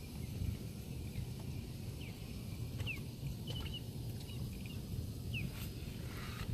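Outdoor ambience at a fishing spot: a steady low rumble, with a few short, high bird chirps scattered through it.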